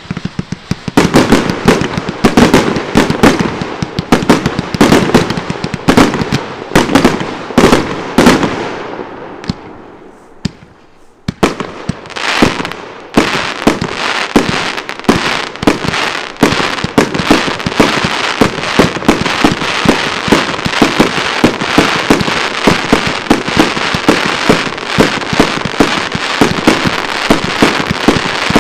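Fireworks going off in rapid succession: dense bangs and crackling that die away to a lull about ten seconds in, then a steady barrage of shots and bursts, roughly two a second, over continuous crackle.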